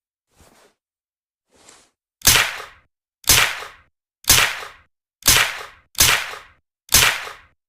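Uzi submachine gun fitted with a suppressor, fired as single shots: six sharp suppressed cracks about a second apart, each fading quickly, after two faint short sounds in the first two seconds.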